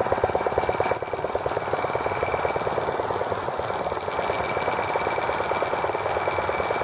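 Small gasoline model engine of a T26 toy tractor running steadily with a rapid, even firing beat, its level dipping slightly about a second in.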